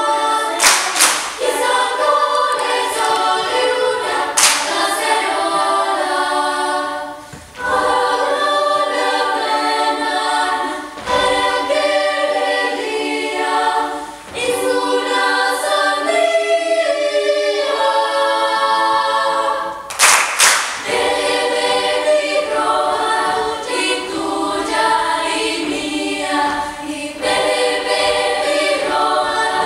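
Youth choir singing a cappella in high voices, with no low bass line, and a few sharp percussive hits along the way.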